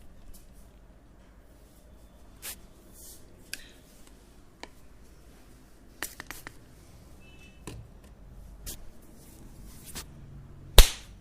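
Hands at work during a head and neck massage: scattered light clicks and taps, then one sharp, loud snap near the end.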